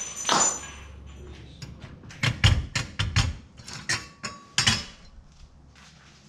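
A run of sharp knocks and clatters as wooden lab cabinet doors are swung open and the things inside are handled, with small items clinking. The loudest knocks come in the middle, then fade to a few light taps.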